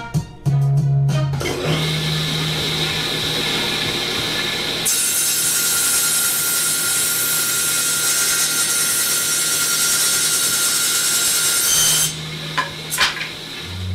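Table saw running, then its blade cutting through a wooden board from about five seconds in until about twelve seconds, a loud hiss with a steady high whine. A few knocks follow as the cut pieces are moved.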